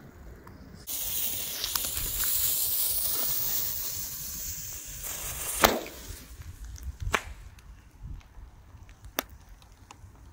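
Funke Drachenflug day firework going off: a loud hiss starts suddenly and burns for about five seconds, then a sharp bang as it fires. Two fainter cracks follow over the next few seconds.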